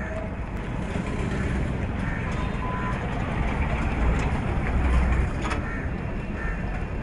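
Truck engine rumbling as it passes close by, over steady street traffic noise and background voices; it is loudest about four to five seconds in.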